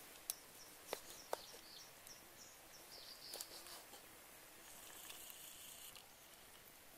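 Faint outdoor quiet with three sharp taps in the first second and a half, as utensils and ingredients are handled on a wooden chopping board. These are followed by a run of short high chirps from a small bird and a brief soft hiss near the end.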